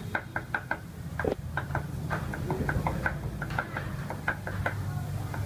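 Cleaver chopping garlic on a round wooden chopping board: quick, uneven knocks, about four or five a second.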